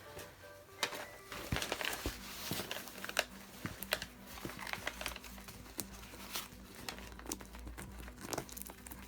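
Packaging crinkling and rustling as it is handled, with irregular crackles and a few sharper snaps.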